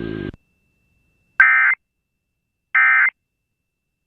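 Emergency Alert System end-of-message data bursts on an FM radio broadcast: short, identical screechy digital squawks about a second apart, the code that closes the tornado warning. The broadcast's background audio cuts off just before them, and a third burst begins right at the end.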